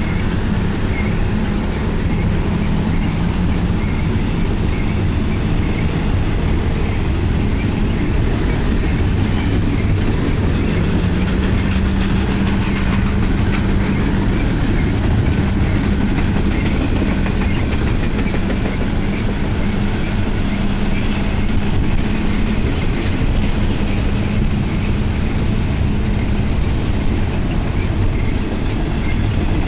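Intermodal freight train of container well cars rolling steadily past: a continuous loud rumble of steel wheels on the rails.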